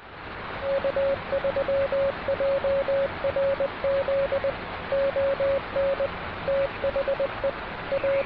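Morse code (CW) keyed as a single steady beeping tone over a constant hiss of shortwave band static, as heard from an amateur radio receiver. The dots and dashes come in groups with short gaps between them.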